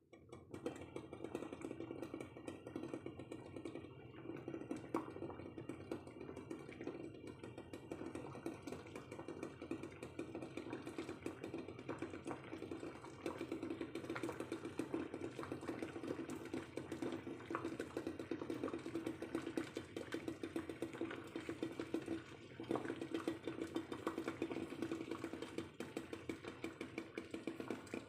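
Eggs boiling in a pot of water: steady bubbling with a fast, continuous rattle of clicks as the eggs knock against the pot.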